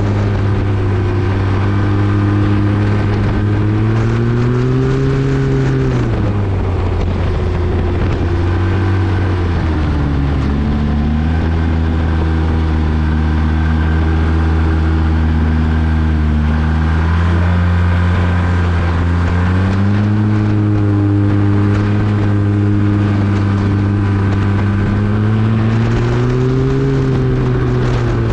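Arctic Cat 1100 turbo snowmobile's three-cylinder four-stroke turbo engine with an MBRP exhaust, running hard at high speed. The engine note climbs about four seconds in, falls away between six and ten seconds, holds lower, then climbs again around seventeen and twenty seconds and dips near the end, over steady wind and rushing noise.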